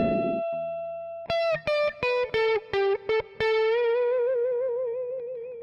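Electric guitar music: a held note fading away, then a quick run of single notes about a second in, then a long held note with vibrato that slowly dies away.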